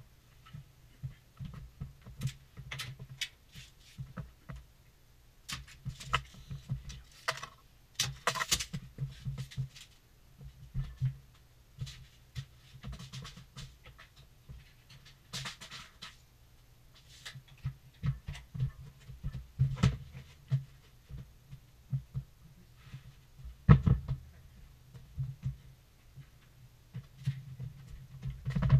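Irregular knocks, taps and scrapes of hand work on a plywood subfloor during a floor-tile install, with dull thuds of footsteps and handled gear close by. A few longer scraping stretches come in the middle, and a sharp knock comes about two-thirds of the way through.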